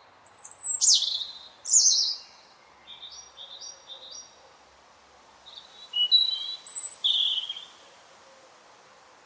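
Robin singing: a loud phrase of high whistled notes and quick downward sweeps, then a softer run of short stepped notes, and a second loud phrase about six seconds in, over a faint steady outdoor hiss.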